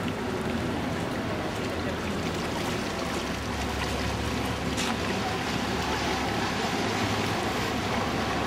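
Motor water taxi's engine running steadily as the boat pulls away along the canal, over the wash of its churned wake; the low engine hum grows stronger about three seconds in as it passes close by.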